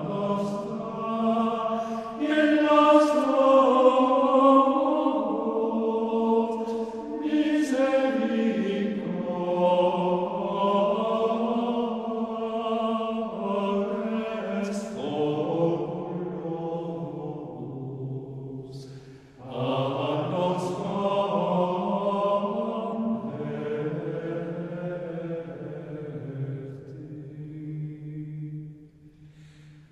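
Slow sung vocal chant as background music, in long held phrases with short breaks between them, the longest about two-thirds of the way through.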